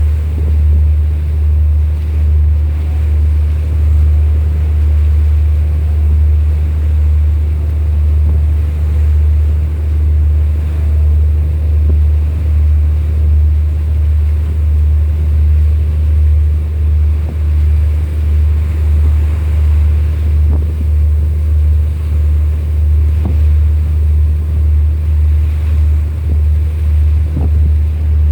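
Low, steady engine drone of a vessel with a regular throb, over the wash of water and some wind noise.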